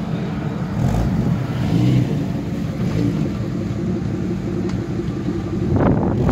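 Off-road 4x4 engine running steadily, getting a little louder near the end.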